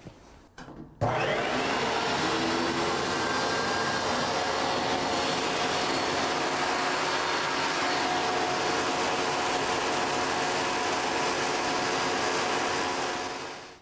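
Table saw fitted with a stacked dado set (two outer blades, no chippers) switched on about a second in, spinning up and running steadily, then switched off and dying away near the end.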